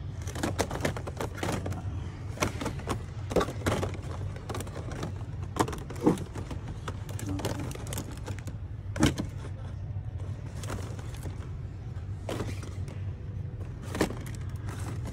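Packaged action figures being handled on store pegs: scattered plastic clicks and clacks, with a few louder knocks, over a steady low store hum.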